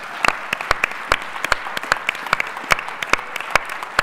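Audience applauding: a hall full of people clapping steadily, with many single sharp claps from nearby hands standing out above the general patter.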